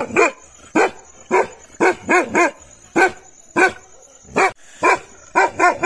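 A six-month-old Gaddi (Himalayan sheepdog) barks repeatedly: about a dozen loud barks at an uneven pace, some coming in quick runs of two or three. This is its alarm barking as a guard dog on watch.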